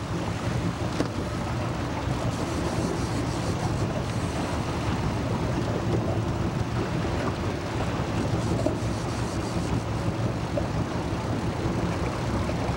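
Fishing boat's engine running steadily, with wind buffeting the microphone and waves washing alongside.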